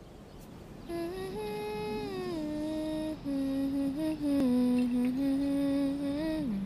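A single voice humming a slow tune alone, with no beat or instruments, its held notes stepping downward, over a faint hiss.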